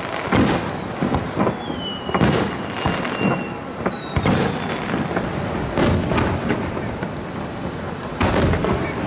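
Aerial firework shells bursting in a display: a quick, irregular run of booms and bangs, with louder bursts about two seconds in and near the end.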